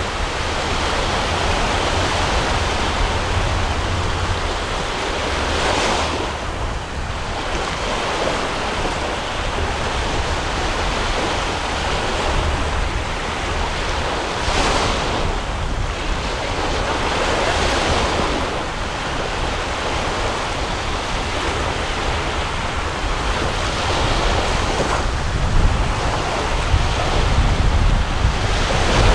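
Sea surf washing steadily under strong wind buffeting the microphone, with a constant low rumble. Louder swells of noise come and go every few seconds.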